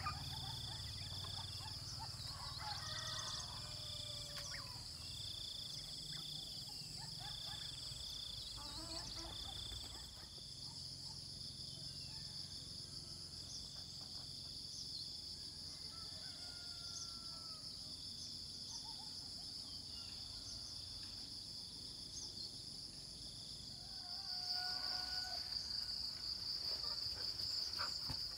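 Early-morning countryside ambience: insects chirring steadily, high-pitched, growing louder near the end, with a second insect pulsing about every second and a half during the first ten seconds. Birds chirp and whistle now and then over it.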